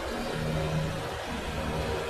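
Milling machine running with a steady mechanical hum, its spindle turning a drill bit in the chuck above a steel workpiece.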